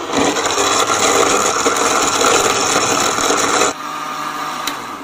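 Electric countertop blender running at full speed, blending milk, peaches and ice cubes in its glass jar. About three and a half seconds in it is switched off, and the motor winds down with a falling hum.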